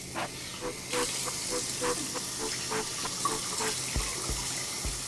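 Water running steadily, under background music: a melody of short repeated notes, with a deep bass drum beat coming in about four seconds in.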